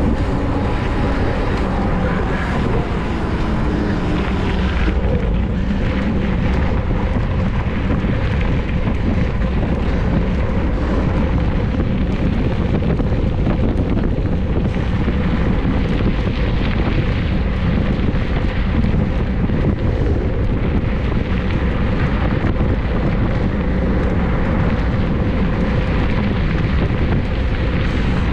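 Steady wind rushing over the microphone while a mountain bike is ridden at race speed, with even, unbroken road noise.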